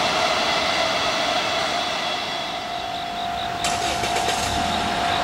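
Japanese freight train running past on the Tokaido Line: a steady hum and rumble of the passing wagons with a held whine, changing abruptly about three and a half seconds in.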